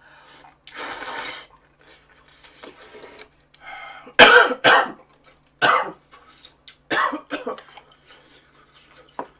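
A person coughing, about four short, loud coughs between about four and seven seconds in, with a softer noisy burst near the start.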